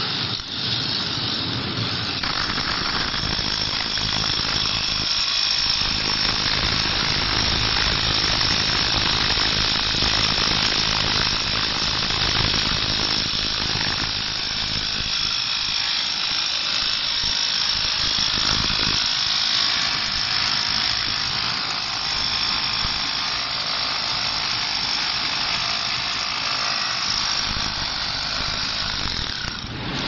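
Hilti electric concrete breaker hammering steadily, its chisel chipping up a concrete floor.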